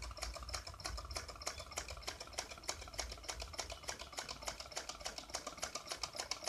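Homemade soft-drink-can Stirling engine running, its moving parts clicking steadily about six times a second. It turns slowly because the burner under it is not yet fully hot.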